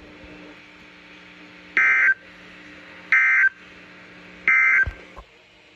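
NOAA Weather Radio broadcasting three short bursts of EAS SAME digital data tones, each about a third of a second long and about a second and a half apart: the end-of-message code that closes the required weekly test. A faint steady low hum runs between the bursts.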